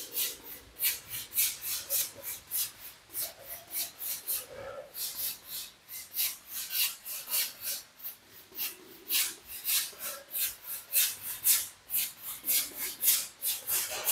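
Wide paint brush scrubbing a sandy, glitter-flecked decorative paint onto a wall in quick short strokes, each a dry raspy swish, about three to four a second, with a brief pause about four seconds in.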